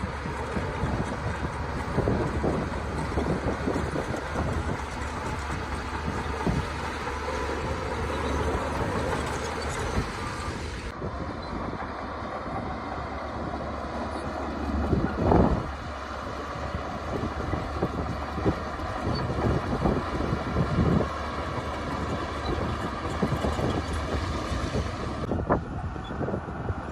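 Heavy earthmoving machinery at work: a diesel engine running steadily, with frequent clanks and knocks and one louder knock about fifteen seconds in.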